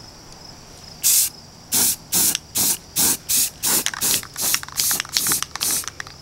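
Aerosol can of metal primer spraying in short hisses: one about a second in, then a quick run of about a dozen more, two or three a second.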